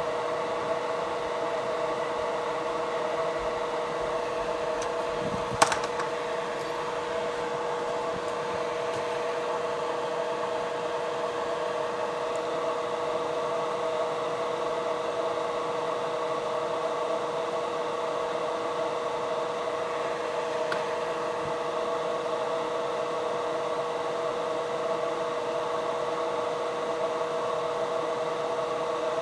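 Steady hum of a small electric fan, with a few even tones in it and a single sharp click about six seconds in.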